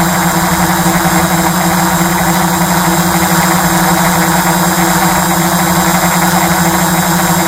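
Quadcopter drone's electric motors and propellers buzzing steadily at a constant pitch while it hovers.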